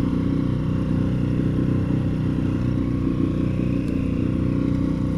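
Small outboard motor on an inflatable boat running steadily at cruising speed.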